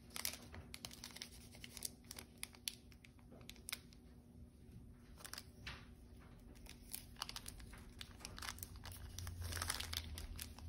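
Foil wrapper of a Pokémon trading card booster pack crinkling and tearing as it is opened by hand, a run of small, scattered crackles.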